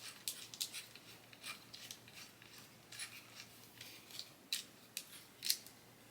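Small plastic parts clicking and scraping as a mini tripod is fitted to the bottom of a DJI Osmo Pocket 3 handheld camera: a run of faint, irregular light clicks.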